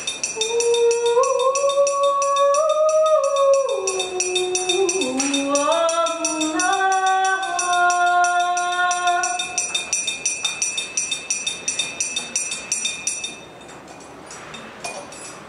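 Wordless singing in long held notes that step up and down in pitch over several seconds, set over a fast, even clicking. The singing fades out about two-thirds of the way through, and the clicking stops soon after, leaving a quieter background.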